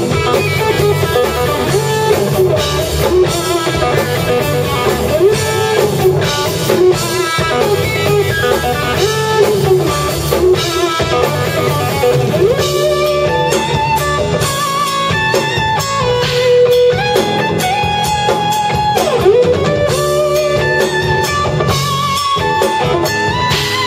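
Live rock band playing instrumental music: electric guitar over bass guitar and drums, with regular drum hits. In the second half the guitar plays held lead notes that bend in pitch.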